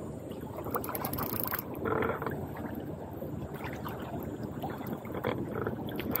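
Small waves lapping and washing against the rocks of a seawall, a steady watery wash, with a short hiss about a second in.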